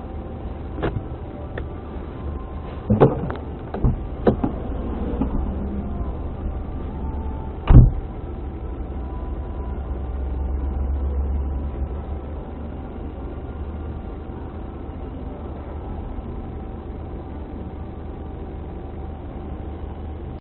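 Car engine running steadily, heard from inside the cabin, with a few sharp knocks; the loudest knock comes about eight seconds in.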